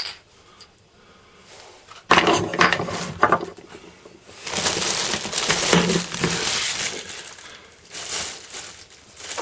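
Clear plastic bag crinkling and rustling in the hands as the pressure-washer hose wrapped inside it is handled, in irregular bursts from about two seconds in. There is a short sharp click right at the start.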